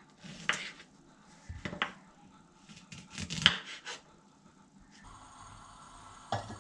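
A few short knocks and scraping cuts of a knife trimming the ends off ripe plantains on a wooden cutting board. A faint steady hum comes in about five seconds in.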